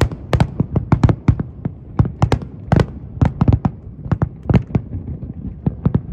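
Aerial fireworks going off in a rapid, uneven barrage, several sharp bangs a second, some much louder than others, with a low rumble between them.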